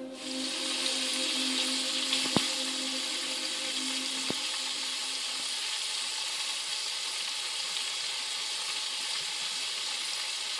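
Baked crucian carp in sour cream sizzling in hot oil in a metal baking pan, at the end of baking. Two sharp clicks come about two and four seconds in.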